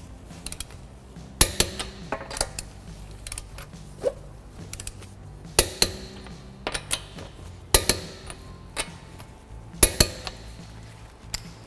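Torque wrench and socket clicking and clinking on the lug nuts as they are tightened to 80 foot-pounds. The sharp metallic clicks come singly or in quick pairs every second or two.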